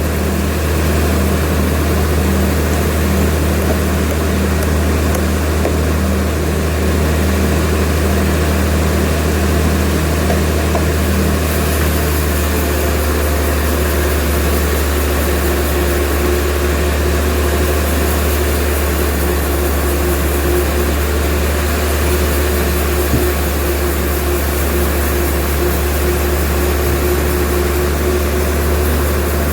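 Sawmill machinery running with a steady, loud, low drone and a few steady tones. About twelve seconds in the pitch pattern shifts and a higher steady tone comes in.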